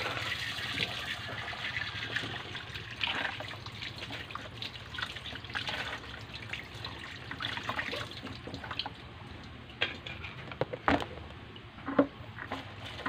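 Tap water running and splashing in a sink as a large lobster is rinsed under it. Near the end the water stops and there are a few sharp knocks, the loudest about twelve seconds in.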